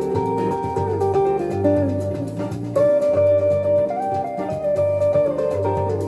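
Instrumental guitar music played back from a CD through a Pioneer A-301 amplifier and speakers, with held, gliding notes over a steady repeating bass line.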